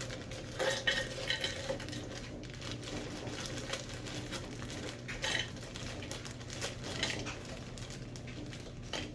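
Pieces of fruit-and-vegetable smoothie mix clattering out of a packet into a cup, in several short bursts of rattling clicks.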